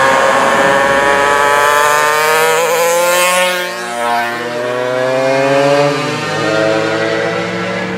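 Two mopeds buzzing past one after the other, each engine's pitch dropping as it goes by, with a car going by right at the start.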